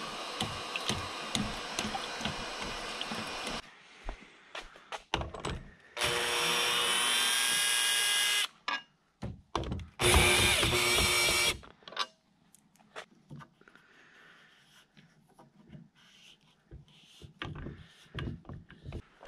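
Cordless drill driving screws through a metal mounting bracket into wooden framing, in two runs of a couple of seconds each, with a steady whine; the second run is the louder. A steady hiss stops abruptly about three and a half seconds in, and scattered knocks and handling clatter follow the drilling.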